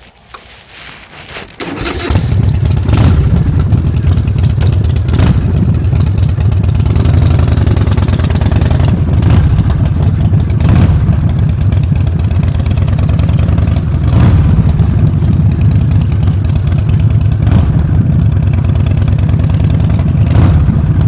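Motor scooter engine starting about two seconds in, then running steadily with a loud low rumble.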